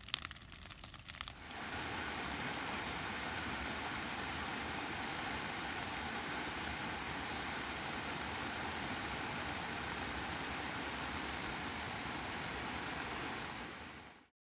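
Waterfall rushing, a steady even noise that sets in after a few clicks and rustles in the first second or so and fades out near the end.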